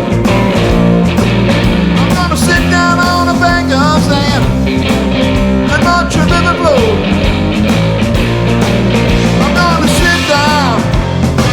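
Electric blues-rock band playing live with no singing: electric guitar lead lines with string bends over bass and drums.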